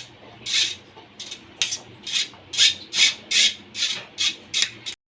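Boiled sweet corn being scraped into a bowl: a run of short rasping scrapes, two to three a second, that cuts off suddenly near the end.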